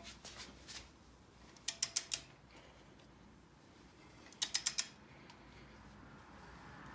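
Ratchet head of a 1/2-inch-drive click-type torque wrench clicking as it is swung back between pulls on a harmonic balancer crank bolt being tightened toward 240 lb-ft. There are two quick runs of about five sharp clicks, one about two seconds in and one about four and a half seconds in.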